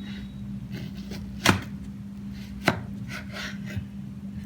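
Knife cutting through a raw potato and knocking onto a cutting board: two sharp chops about a second apart, with fainter taps after them.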